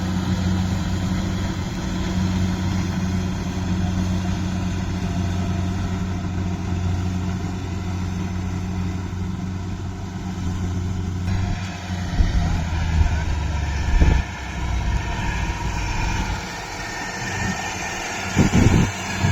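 Kubota rice combine harvester's diesel engine running steadily with a low, even hum. About eleven seconds in, the low hum thins and a higher rushing, rattling noise rises, with a couple of short thumps near the end.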